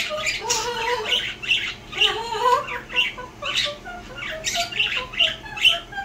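Two pet parrots singing together: one gives a wavering, badly off-key tune it has been taught, while the other chimes in with repeated short, sharp squawks and chirps.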